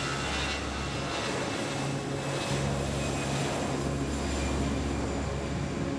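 Jet engines of an Airbus A319 airliner rolling along the runway: a steady low drone with a broad rushing haze, heard from a distance.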